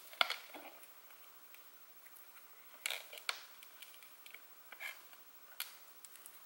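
Faint, scattered clicks and short scrapes of a small hex Allen key and an M3 bolt and nut being handled and tightened into the acrylic and plastic parts of a dust shoe. About half a dozen separate clicks, the loudest right at the start.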